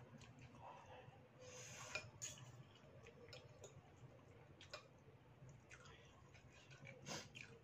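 Faint eating sounds: noodles slurped and chewed, with a few sharp clicks of a metal fork and spoon against a ceramic soup bowl, the loudest about two seconds in.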